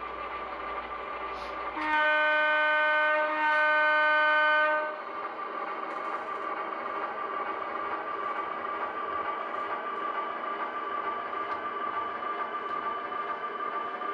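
HO-scale model diesel locomotive's DCC sound decoder blowing two long horn blasts back to back, about two seconds in, over its steady engine sound with a constant whine.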